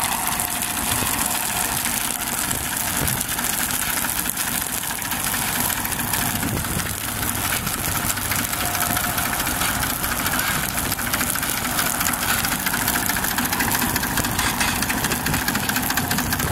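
An engine running steadily at idle, with the continuous hiss of a fire hose spraying water onto burning grass.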